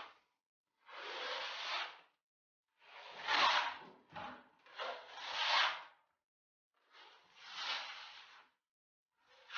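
A plastering knife scraping along a plaster wall in a series of strokes, most about a second long, one very short, with short pauses between.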